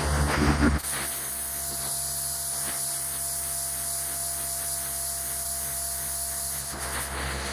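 Pressure washer spray hissing steadily on a hard surface, with a faint steady tone under it.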